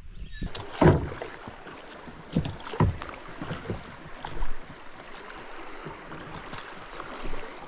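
Water splashing and sloshing around a raft on a river, with several sharper splashes a second or two apart.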